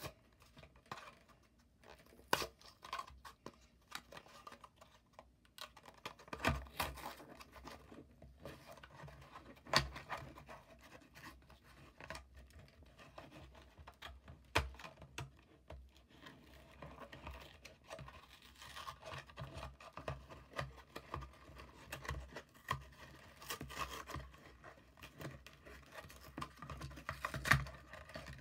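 A toy car's blister package being torn open by hand: the plastic blister is pulled off its cardboard card and the paper backing is picked and ripped away. There is intermittent tearing, scratching and crinkling, with scattered sharp clicks and a few louder knocks.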